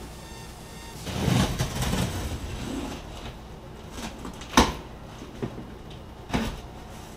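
Cardboard box being opened by hand: a stretch of rustling and scraping cardboard, then a sharp snap a little past the middle and two softer knocks.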